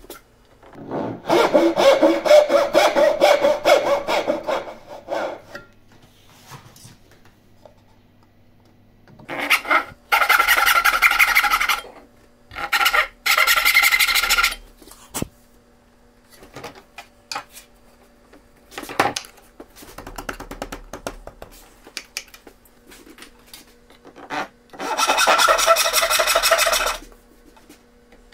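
Hand saw cutting short kerfs into the end of a pine board. It comes in four bursts of quick back-and-forth strokes, each two to four seconds long, with quiet pauses between them.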